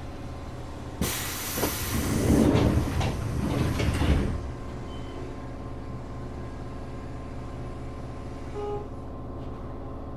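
Train doors of a Tokyo Metro 7000 series car operating: a sudden loud hiss and rumble starting about a second in and lasting about three seconds. A steady low hum from the standing car continues under it and after it.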